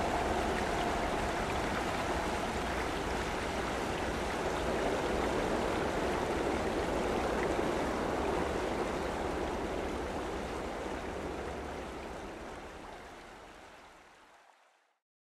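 Steady rushing of a flowing river, fading out over the last few seconds.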